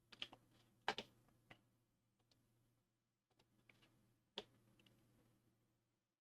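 Faint, scattered clicks of a computer keyboard and mouse, a few at a time with pauses between, the loudest about a second in and again after four seconds, over a faint low hum.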